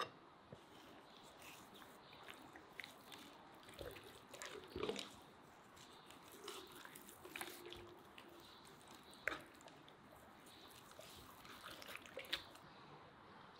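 Faint food-handling sounds: a small spoon scooping spice from a clay bowl, then hands rubbing and turning a raw whole chicken on a wooden cutting board. Scattered light taps and clicks, with a short cluster of louder handling about four to five seconds in and sharp ticks near nine and twelve seconds in.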